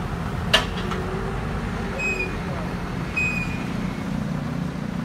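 Forklift engine running steadily, with a sharp knock about half a second in and two brief high squeaks around two and three seconds in.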